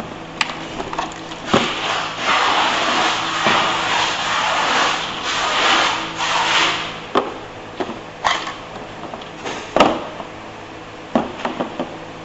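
Handling noise: several seconds of rustling and rubbing, then scattered knocks and clicks, with one sharp knock near ten seconds in, over a steady low hum.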